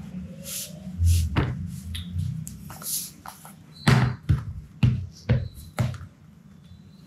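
Laptop being handled out of a soft crocheted sleeve and set down on a desk: rustling and sliding, then a quick run of about five sharp knocks and taps against the desk about four seconds in.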